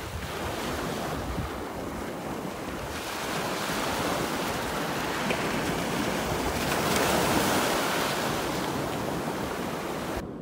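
Small waves breaking and washing up over a pebble beach, the surf swelling and easing, loudest about two-thirds of the way through. Wind buffets the microphone underneath.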